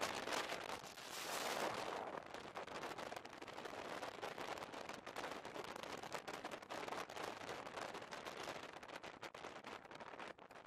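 Wind and rail noise from an SJ night train running at speed, with the microphone held out of an open window: a steady rushing with dense crackling wind buffets on the microphone, loudest in the first couple of seconds.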